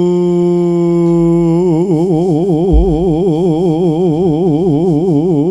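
A man's amplified voice holding one long sung note in a Javanese chant. The note stays level at first, then goes into a wide, fast vibrato from about a second and a half in.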